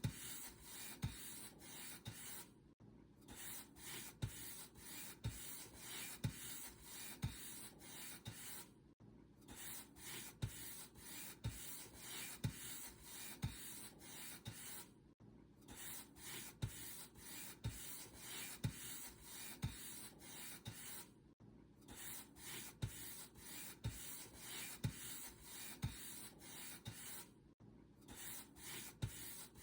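Paint brush bristles brushed back and forth over a surface: a scratchy swishing in repeated strokes at a steady rhythm, broken by a brief pause about every six seconds.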